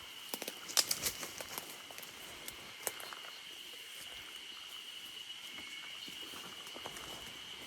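Footsteps pushing through forest brush, with twigs and leaves crackling in a cluster about a second in and again near three seconds. Under them runs a steady, high insect drone.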